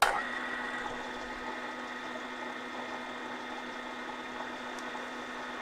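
Bridgeport milling machine's spindle switched on, starting abruptly and then running with a steady hum and whine while the drill bit in it is fed down into a broken screw in a steel exhaust pipe.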